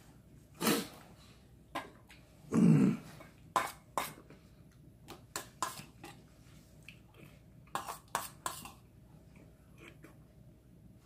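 A man clears his throat twice, the second time longer and heavier. Then come a series of sharp clicks and taps as a spoon strikes a stainless steel bowl while he eats.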